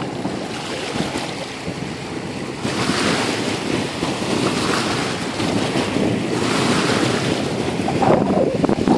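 Wind buffeting the microphone over the wash of small waves at the lake's edge, in gusts that swell and ease.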